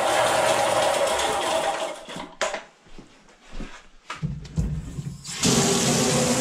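Electric Eel Model C drain-cleaning machine running with a steady motor hum and spinning cable, then shutting off about two seconds in. A few clicks and knocks follow, and about five and a half seconds in water starts running hard from the laundry tub faucet.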